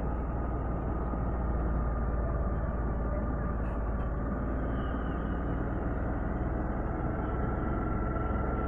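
Steady outdoor background noise with a strong low rumble, heard while walking along a residential lane. Two faint clicks come about four seconds in.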